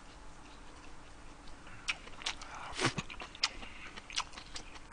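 Close-up chewing and mouth sounds of a person eating kimchi-braised beef short ribs, with scattered small clicks from about two seconds in and a brief low hum near three seconds.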